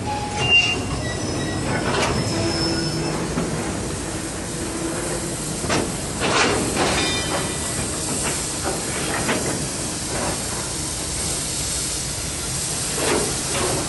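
Queensland Rail BB18¼ class steam locomotives rolling slowly along a station platform: a steady hiss of steam, with a few brief high wheel squeals and irregular knocks from the moving train.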